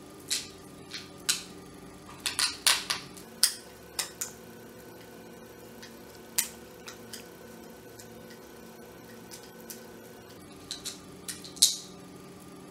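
A screwdriver backing the housing screws out of a plastic hand blender gives a string of sharp clicks and scrapes against the screw heads and the plastic case. The clicks are bunched in the first few seconds, with one in the middle and another cluster near the end. A faint steady hum runs under them.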